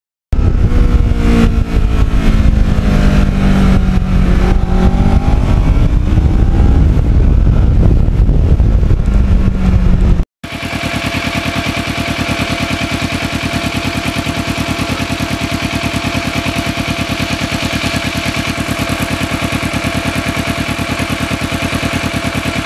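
Kawasaki Ninja 650R parallel-twin motorcycle being ridden, its engine pitch falling and then rising again over a low rumble of wind and road noise. About ten seconds in it cuts to the same engine idling steadily, with an even, rapid pulse.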